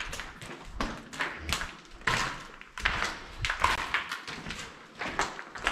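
Footsteps on a hard floor, an irregular run of short scuffing strokes about two a second.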